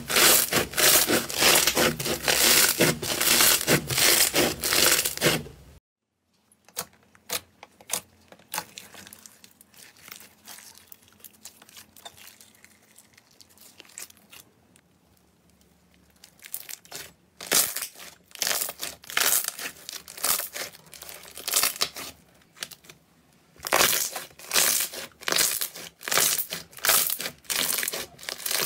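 Slime being squeezed and pressed by hand, with dense crackling from a foam-bead slime (floam). After a sudden cut about six seconds in come quieter, scattered sticky clicks as a glossy slime is stretched. In the last third the crackling returns as loud, repeated squishing bursts.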